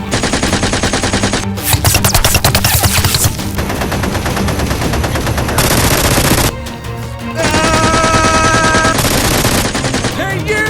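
Rapid automatic-gunfire sound effects in quick bursts over music with a steady low beat, the densest and loudest stretch about two seconds in. A high whine runs for about two seconds near the end.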